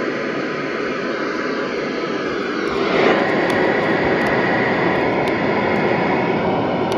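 Radio receiver hiss and static with no programme audio, steady and fairly loud. It shifts and grows a little louder about three seconds in, with faint crackles.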